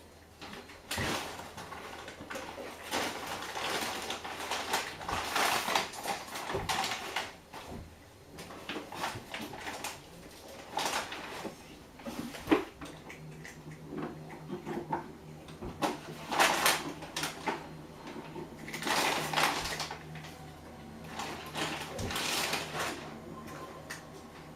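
Washing machine running: repeated swishing surges every few seconds as the drum turns. About halfway through there is a click, then a steady low hum.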